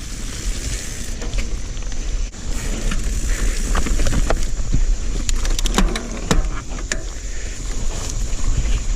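Mountain bike riding over a rough trail, with wind buffeting the microphone and a steady rolling rumble from the tyres. A cluster of sharp clicks and rattles from the bike comes about halfway through.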